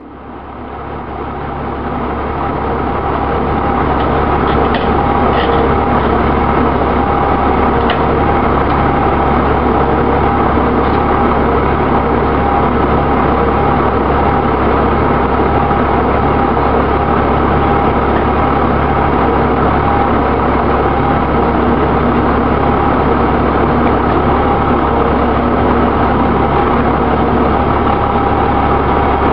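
A heavy engine idling steadily. It fades in over the first few seconds and then holds an even, unchanging note.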